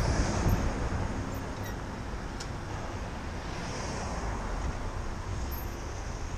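Wind rushing over the microphone of a cyclist riding along a city street, with traffic noise behind it. The wind noise eases over the first couple of seconds, then holds steady.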